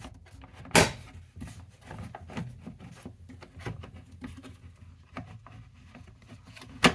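Clicks, ticks and plastic rattles of a chainsaw's top cover being unscrewed with a T20 driver and lifted off, with a sharp knock about a second in and another at the end.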